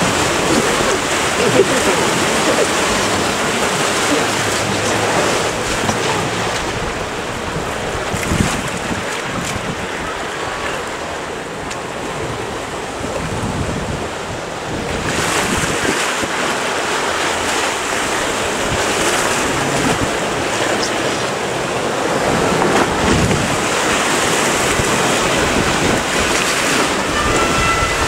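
Whitewater rushing and churning in a rapids-ride channel around the moving raft, a steady loud rush that swells and eases, with wind buffeting the microphone.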